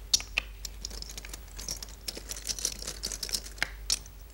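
Stones being set on a large wall-mounted Go demonstration board one after another: a quick series of sharp clicks and taps, with some light rustling.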